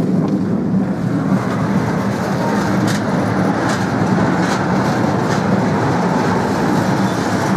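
Ride-on miniature railway train running along its track, heard from aboard: a steady rumble of wheels on rail, with sharp clicks about once a second around the middle.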